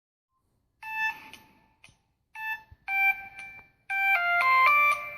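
Samsung T469 Gravity mobile phone playing a preloaded ringtone through its speaker. After about a second two short electronic chimes sound, each fading out, then a quick synthesized melody of stepped notes.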